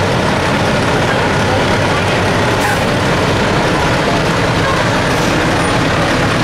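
A large motor vehicle, such as a truck or bus, running close by in a steady rumble, with a brief hiss about two and a half seconds in.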